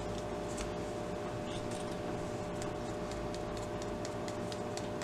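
Steady low room hum with a faint constant tone, with a few light, scattered ticks; no distinct louder event.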